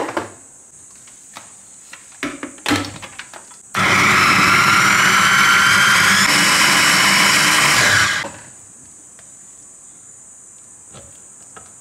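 Electric mini chopper with a glass bowl running steadily for about four seconds, chopping shallots and garlic with a little water, then cutting off. A few short knocks come before it starts.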